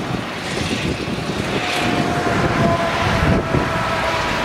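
Claas Jaguar 970 forage harvester chopping maize: its MAN V8 engine runs steadily under load, with the rush of the crop flow. A faint steady whine comes in about one and a half seconds in.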